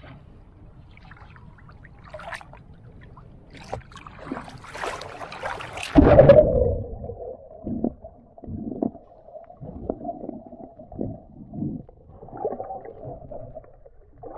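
Sea water splashing around a swimmer. About six seconds in, the microphone plunges under the surface with a loud splash, and after that everything is muffled underwater gurgling with irregular dull thumps from the swimmer's movements.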